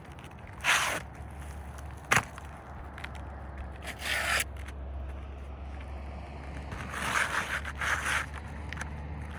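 Asphalt shingles being handled and scraped, with several short rough scrapes and one sharp click about two seconds in.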